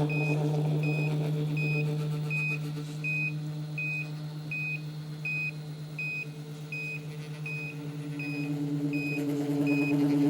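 1/14-scale BOMAG 120AD RC road roller with its vibration running: a steady electric hum, with a short high electronic beep repeating about every three-quarters of a second. The hum dips a little midway and grows louder again near the end.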